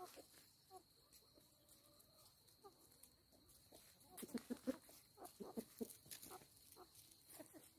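Chickens clucking softly: short low clucks, mostly in quick clusters in the second half.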